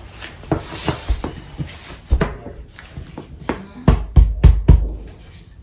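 Bamboo furniture parts knocking together as a leg is tapped by hand into its joint in the frame: light clicks and knocks, then a quick run of about five hard knocks around four seconds in.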